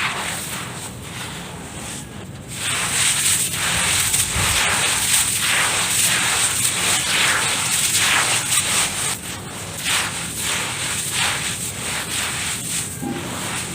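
Hands crumbling and mixing dry dirt: a continuous crunchy, crackling rustle that gets louder about three seconds in.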